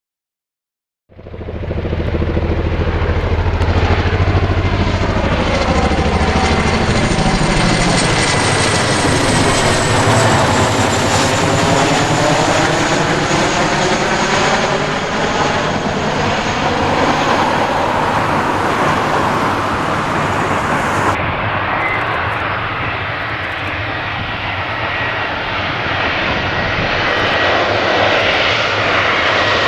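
Boeing C-17A Globemaster III's four turbofan engines running loud and steady as the airlifter comes in to land, starting abruptly about a second in. A high whine over the engine noise falls slowly in pitch through the middle of the sound, and its character shifts as the aircraft moves past.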